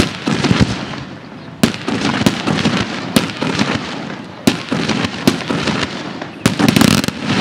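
Fireworks display: a string of sharp bangs, roughly one a second with a quick cluster near the end, over a continuous hiss and crackle.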